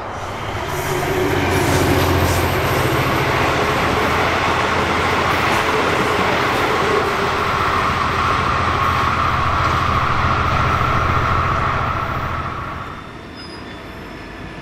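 V/Line N class diesel-electric locomotive (EMD 12-645 two-stroke V12) passing at speed with a passenger train: a steady engine drone under wheel-on-rail noise. It swells about a second in and drops away sharply about 13 seconds in.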